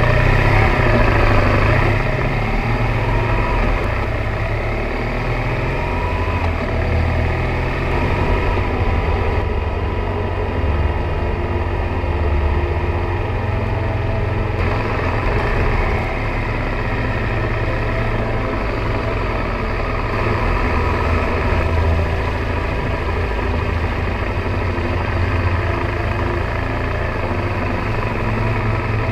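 Motorcycle engine running at riding speed, a steady drone whose note rises and falls a few times.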